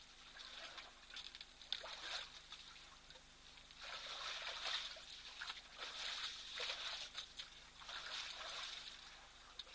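Water sloshing and splashing in irregular bursts as African elephants drink and step in the shallows at the edge of a waterhole.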